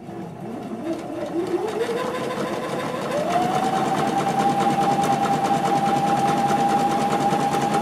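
Household electric sewing machine stitching a close zigzag (satin) stitch along one side of a buttonhole. The motor whine rises as the machine speeds up over the first three seconds, then runs steady with the needle's fast, even stitching.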